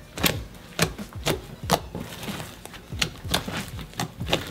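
A large mass of glitter slime, made of several slimes including one with crunchy plastic snow, kneaded and folded by hand, giving irregular sharp clicks and pops about two to three times a second.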